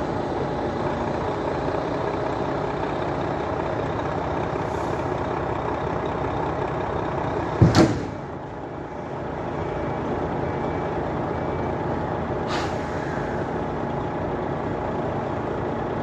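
Heavy diesel machinery running steadily at a loaded container loading operation, with a loud double knock about halfway through and a short hiss-like burst a few seconds later.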